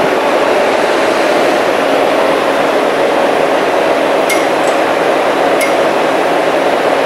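Loud, steady noise of a subway station, with two sharp metallic clinks about four and five and a half seconds in.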